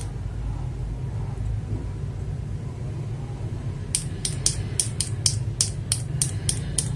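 A steady low rumble for the first few seconds, then, from about four seconds in, quick sharp clacks of mechanical keyboard switches being pressed and released by hand, about four a second, to test their sound.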